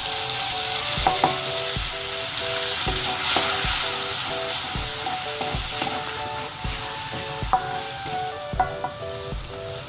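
Food sizzling as it fries in a pan, with a few sharp clinks of a utensil as it is stirred, over background music with a steady beat.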